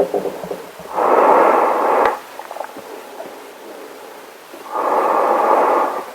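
Breathing through a gas mask's filter: two breaths about a second long each, close to four seconds apart. Faint small crackles and a single click fall between them.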